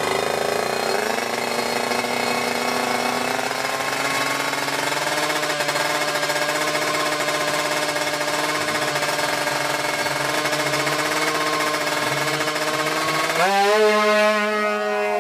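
Tuned Kawasaki Ninja two-stroke single-cylinder drag bike engine held at high revs on the start line with a steady, buzzing note. About thirteen seconds in, the pitch jumps up and grows louder as the bike launches and pulls away.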